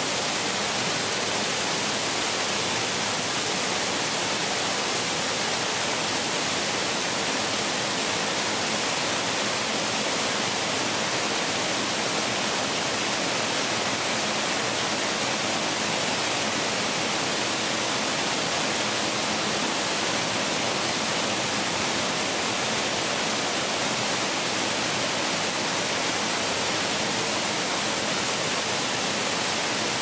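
The Black Linn waterfall on the River Braan: white water pouring over rocks in a steady, unchanging rush.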